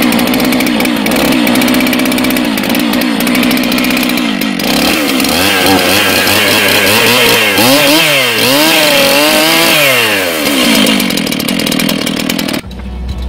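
Stihl MS 441 two-stroke chainsaw running steadily, then revved up and down several times before settling back. The sound cuts off abruptly near the end.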